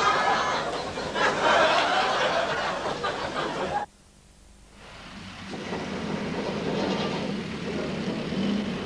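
People's voices and laughter on a street, cut off suddenly. After about a second of near silence, street traffic noise with a car engine's low hum fades in.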